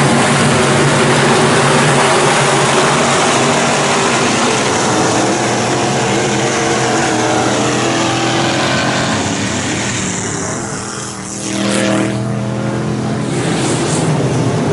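A pack of IMCA SportMod dirt-track race cars' V8 engines running hard as they race around the track. The engine sound dips briefly about eleven seconds in, then swells again as cars come by.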